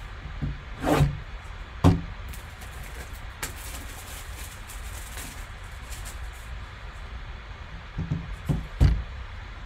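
Handling a sealed cardboard trading-card box: a couple of knocks as it is set down and turned, then a few seconds of crinkling and tearing as its plastic shrink-wrap is cut and pulled off, and a few more knocks near the end as the box is handled on the table.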